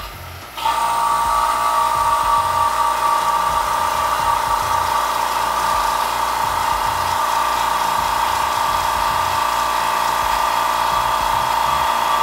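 Vacuum pump starting up about half a second in and then running steadily with an even whine, pulling the air out of a vacuum chamber toward −0.9 atmospheres.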